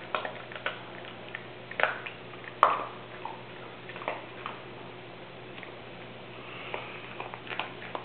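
Dog chewing and gnawing a treat: irregular crunches and clicks of teeth, the loudest about two and a half seconds in.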